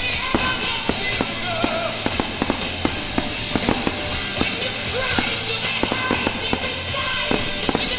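Consumer fireworks going off, many sharp cracks and pops in quick succession, under a steady background music track.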